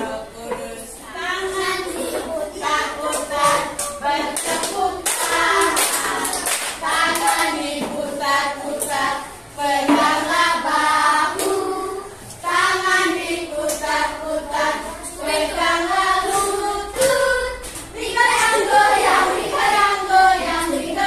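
A class of children and a woman singing a song together, with some handclaps about five to seven seconds in.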